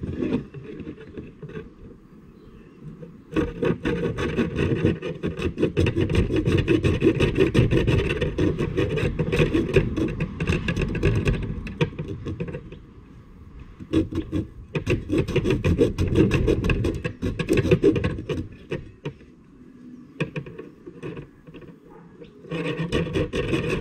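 A bare hacksaw blade, used without its handle, sawing back and forth through a thin wooden dowel rod in quick rasping strokes. It starts about three seconds in and runs in three spells with two short pauses.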